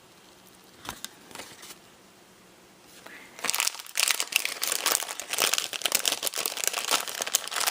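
Packaging being handled and crinkling: a few light rustles about a second in, then continuous crinkling from about three and a half seconds on.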